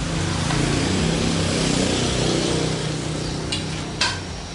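Pressure cooker lid being twisted open: a steady metal grinding with a hiss for about three seconds, then a few clicks and a sharp clank about four seconds in.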